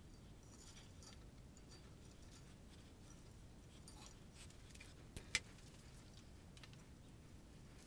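Near silence with faint handling clicks as a rope is tied to the end of an aluminium actuator arm, and one sharp knock about five seconds in as the metal arm is set back down on the rig.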